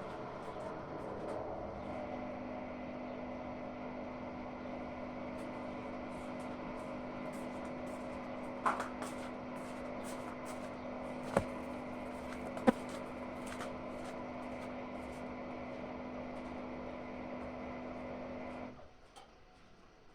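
Hotpoint-Ariston AQ8L 09 U washing machine running with a steady hum, with a few sharp clicks around the middle, then stopping abruptly near the end.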